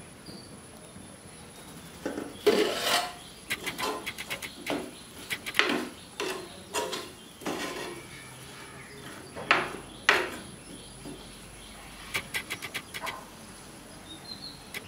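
A ladle stirring diced food in a clay pot: irregular knocks and scrapes against the pot, starting about two seconds in, some coming in quick runs.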